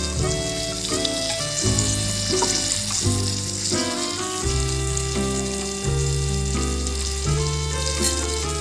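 Hot oil sizzling steadily as a fish fillet fries in a miniature metal wok, with a small spoon basting it. Background music with a deep bass line plays throughout.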